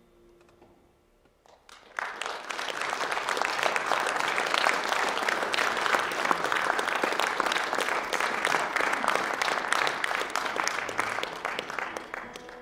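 Audience applauding: after about two seconds of near quiet as the band's last notes die away, applause breaks out suddenly and carries on steadily, easing off a little near the end.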